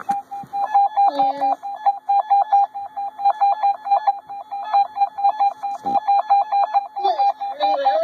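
A weather radio's alert alarm going off for a tornado watch: one high electronic beep repeated rapidly and evenly, without a break.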